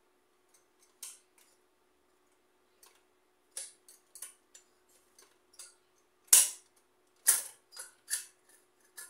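Rice cooker's cook switch lever and spring-loaded thermostat sensor being pressed again and again, about ten sharp plastic clicks at uneven intervals, the loudest a little past the middle. The switch is not staying latched because its small linking lever has not yet been refitted.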